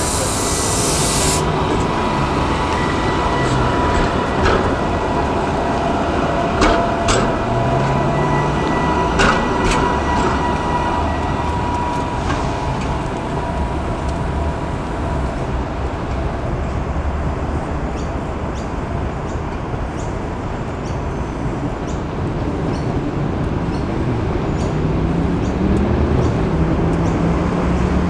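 Sydney light rail tram (Variotram) running along its track, with a steady electric motor whine and sharp wheel clicks over the rails in the first ten seconds or so, fading as it moves away.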